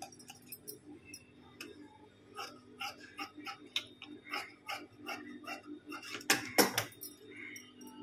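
Large steel scissors snipping through folded fabric: a run of short crisp snips about two a second, then two louder knocks near the end, over a steady low hum.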